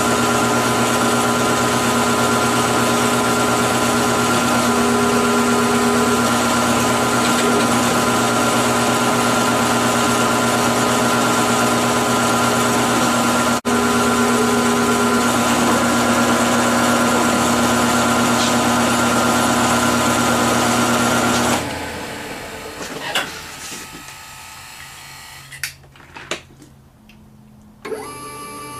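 Electric shop machinery running steadily with a mix of hum and whine, then switched off about 21 seconds in and running down. A few light knocks follow, and a new sound, likely music, starts just before the end.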